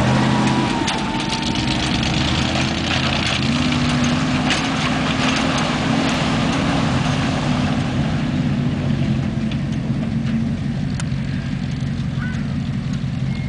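Dodge four-wheel-drive pickup's engine running steadily under load as the truck drives through a muddy pool, with water splashing and spraying; the splashing thins out after about eight seconds while the engine keeps running.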